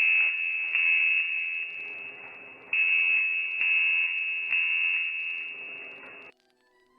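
A high, steady electronic tone, like a broadcast attention signal. It sounds again several times, sagging a little between repeats, then cuts off sharply about six seconds in.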